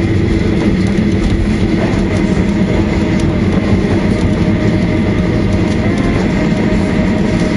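Cabin noise of a Boeing 737-800 rolling out on the runway just after landing: a steady low rumble from the wheels and engines as the aircraft slows, with a faint steady whine above it.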